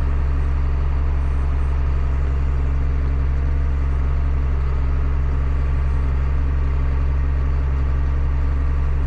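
Big John Deere farm tractor's diesel engine running steadily, an even low drone that holds the same pitch throughout.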